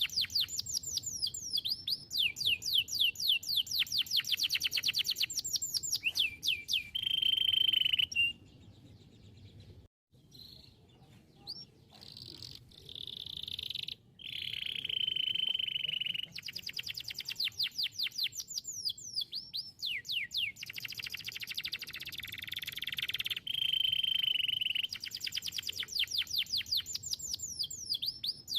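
Domestic canary singing: fast runs of repeated falling notes alternating with steady rolling trills. The song breaks off about eight seconds in, comes back with softer phrases, and runs on at full strength from about fourteen seconds.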